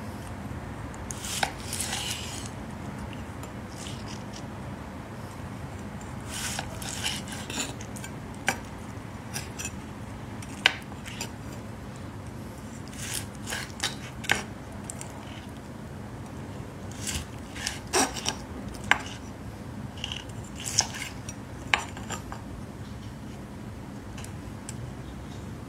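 A large knife slicing through a seared ribeye steak on a wooden cutting board: irregular short scrapes and sharp clicks as the blade cuts through and meets the board, over a steady low background noise.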